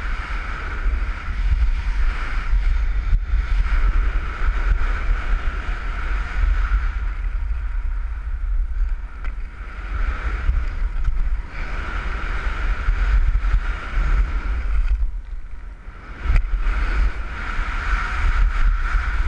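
Wind buffeting a skier's camera microphone at speed, with the hiss and scrape of skis running on packed snow. The noise drops away briefly about fifteen seconds in and comes back with a sharp thump.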